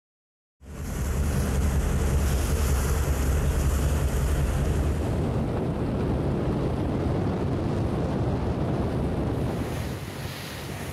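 Wind buffeting the microphone over open sea, with waves and a steady low rumble underneath. It starts abruptly just under a second in and eases a little near the end.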